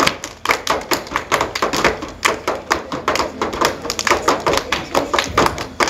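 A group clapping their hands in quick succession, about five claps a second, mixed with stamping dance steps on the stage floor.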